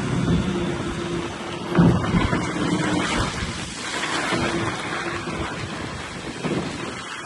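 Bobcat S570 skid-steer loader's diesel engine running, with a rumbling, noisy mix and a single loud knock about two seconds in.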